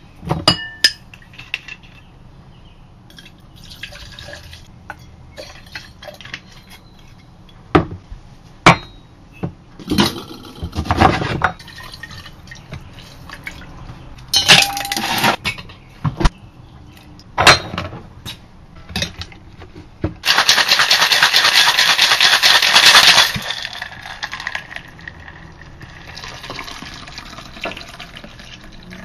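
Cocktail being mixed in a stainless steel shaker. Scattered clinks and knocks of bottles and the metal tin come first, then ice rattles hard in the shaker for about three seconds, then the drink pours from the shaker into a glass.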